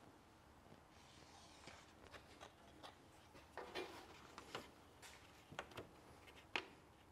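Faint scratching and light ticks of a marker pen drawing on a card template as it is held and handled, with one sharper tick about six and a half seconds in.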